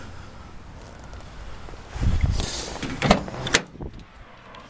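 A car door being handled: a low rumbling thud with a rush of noise about two seconds in, then two sharp metallic clicks a half second apart.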